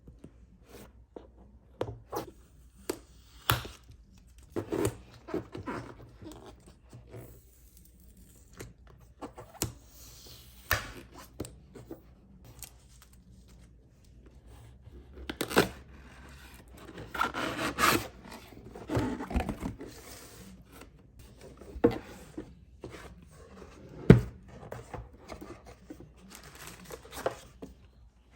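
Packaging being handled and opened, with tearing, rustling and scraping, and many small clicks and knocks. The sharpest knock comes about 24 seconds in.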